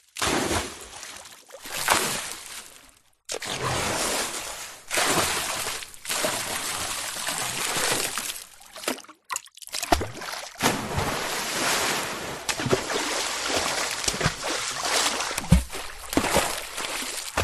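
A series of water splash sound effects: short splashes in the first three seconds, then two longer stretches of splashing and sloshing water, cut apart by brief silences.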